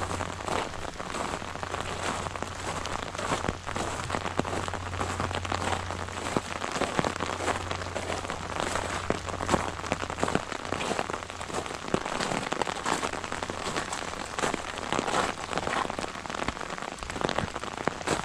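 Steady rain pattering, with many sharp individual drop ticks. A low steady hum sits underneath for about the first half and then fades.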